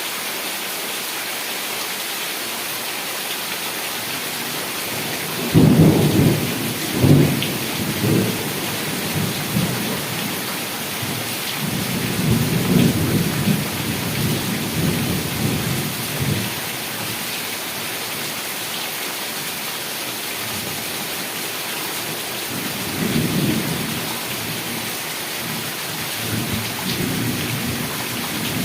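Heavy rain falling steadily, with thunder: a sudden clap about five seconds in that rolls on into rumbling, and further rumbles later on.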